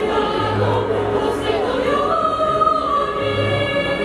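Children's choir singing, holding long notes, over a low accompaniment.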